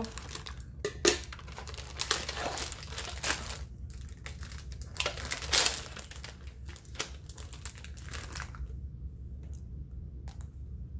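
Plastic candy wrapper crinkling and rustling as it is cut and pulled open by hand, with a dense run of crackles that stops about eight and a half seconds in, leaving only a few faint clicks.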